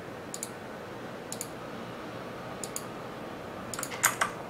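Computer mouse clicking: a few single clicks spaced about a second apart, each a quick press-and-release pair, then a louder quick cluster of clicks near the end.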